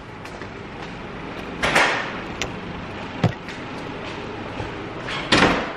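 Handling noise from a phone being carried while walking: two loud scuffs against the microphone and one sharp knock over steady background noise.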